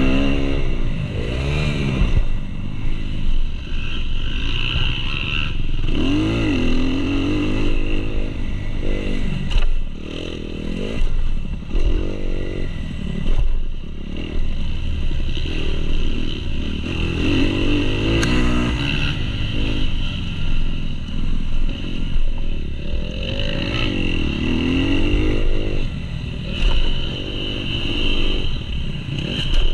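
2019 Kawasaki KX250's single-cylinder four-stroke engine heard from on board while it is ridden hard, the revs repeatedly climbing and dropping as the rider accelerates, shifts and rolls off around the track.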